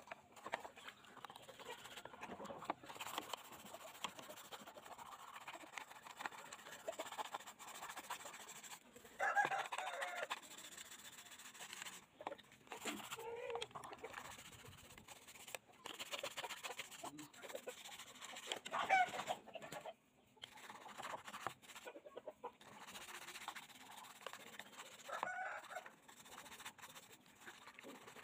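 Chickens clucking: several short, separate calls a few seconds apart, the loudest about nine and nineteen seconds in.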